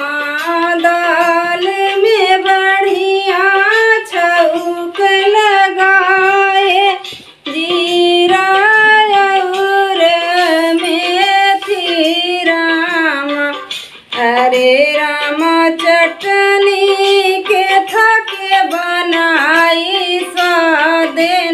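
A woman singing a kajari folk song solo, with no instrumental accompaniment, in long held phrases with short breaks between lines about seven and fourteen seconds in.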